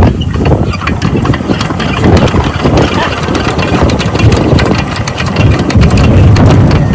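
A 12 HP diesel water-pump engine running, a loud continuous chugging made of rapid knocks.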